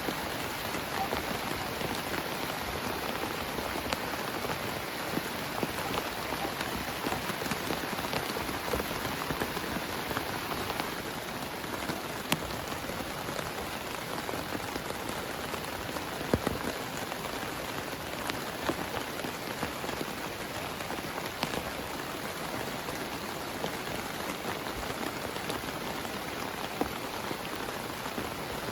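Heavy rain falling steadily on a tent: an even hiss with scattered louder single drop hits.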